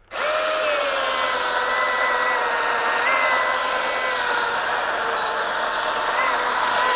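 Milwaukee 2727 M18 FUEL brushless cordless chainsaw switching on and running at full speed as its chain cuts into a log of wet oak. It starts at once with a steady electric whine that drops a little in pitch in the first second, then holds over the hiss and rasp of the chain in the wood.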